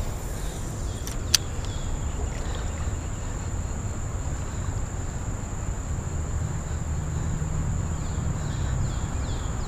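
A steady high-pitched insect drone over a low rumble, with one sharp click about a second and a half in.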